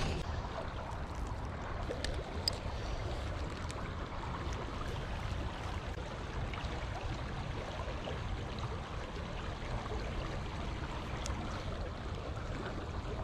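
Shallow stream water running steadily, with a faint click or two.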